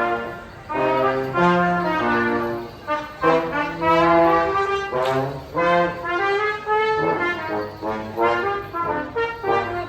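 Music with brass instruments playing a lively melody of short, changing notes.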